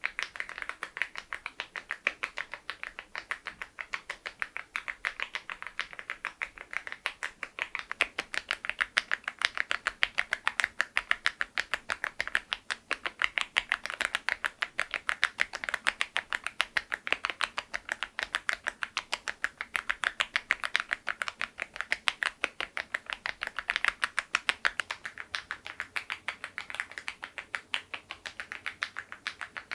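Continuous fast typing on a mechanical keyboard fitted with Keytok Godzilla 'very low profile' (Berry profile) keycaps over LEOBOG Grey Wood switches: a dense, even stream of sharp keystroke clacks.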